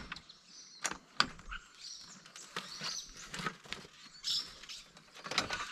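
Scattered light clicks, taps and scratchy rustling from an awning anti-flap clamp being fitted and clamped onto the caravan awning's vinyl.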